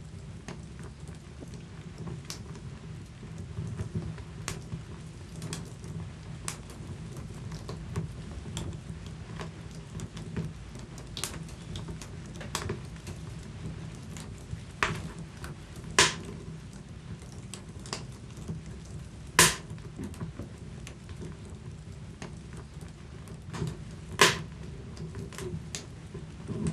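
Wood fire crackling in a fireplace: a steady low rumble of the flames with scattered crackles, and three loud sharp pops in the second half.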